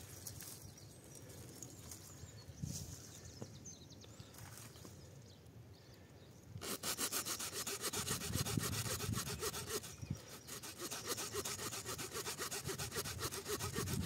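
Small folding wood saw of a Victorinox Ranger pocketknife cutting wood in quick, even back-and-forth strokes, starting about halfway through after a few faint handling sounds.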